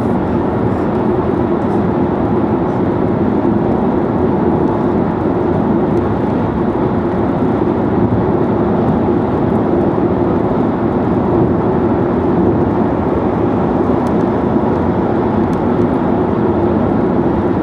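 Steady tyre and wind noise of a Nissan Leaf electric car cruising at expressway speed, with no engine sound.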